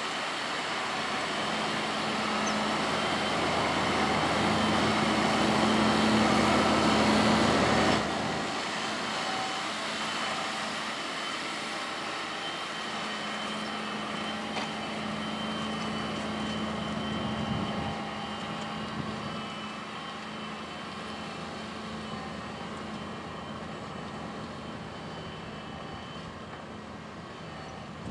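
Farm tractor's diesel engine running steadily, growing louder for about eight seconds, then dropping suddenly to a quieter, steady hum.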